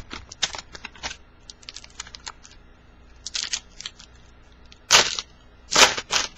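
Plastic wrapper of a baseball card pack crinkling in the hands, then tearing open in two louder rips near the end.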